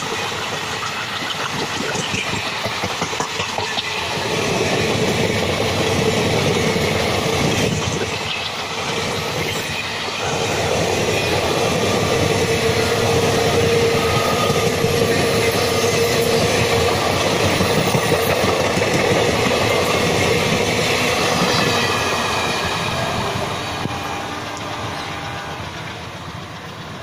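Passenger train coaches rolling past at speed, their wheels running over the rails in a steady rumble, with a steady tone through the middle. The sound fades near the end as the last coach moves away.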